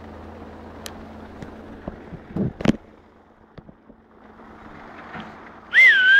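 Wind noise on the microphone with scattered scuffs and a thump about two and a half seconds in, then a loud whistle near the end that swoops up and down before holding a steady note.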